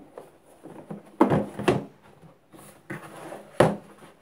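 Blow-moulded hard plastic carry case being unlatched and opened by hand: a few sharp plastic clacks, about a second in, half a second later and again near the end, with rustling handling in between.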